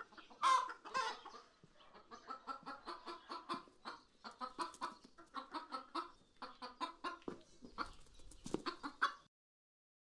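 Chicken clucking: a quick run of short, repeated calls, with two louder calls in the first second or so. The sound cuts off suddenly about nine seconds in.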